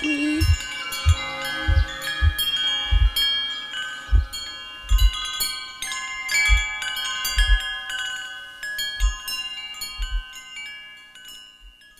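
Wind chimes ringing, many overlapping bell-like tones, with low soft thuds beneath that come about once a second at first and grow sparser. The whole sound dies away over the last few seconds.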